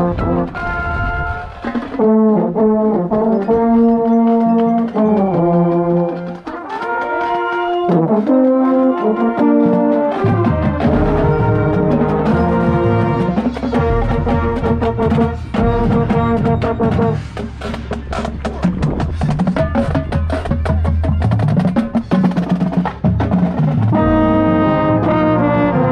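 Marching band playing its show: brass chords from the horn line, with a baritone horn right at the microphone, over drumline strokes. About ten seconds in, a much heavier low brass and bass drum sound comes in.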